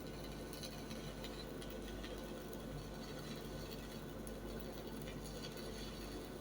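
Stick welding arc on an E6013 electrode, crackling steadily and irregularly over a constant low hum.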